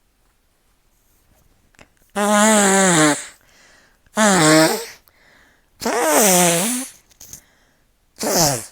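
A person blowing their nose hard into a handkerchief, four blows of about a second each, each with a tone that falls in pitch over a rush of air. The nose is full of sticky mucus.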